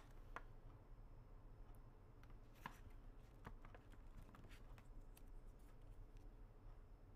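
Near silence with faint, scattered clicks and light rustles from a hand handling a dog dental chew stick and its plastic pouch.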